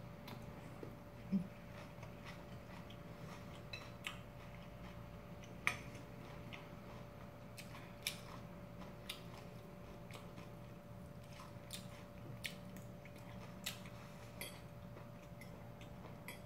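Close-miked chewing of spaghetti, with scattered sharp clicks of a fork against a spoon and porcelain bowl as the pasta is twirled. A faint steady hum lies underneath.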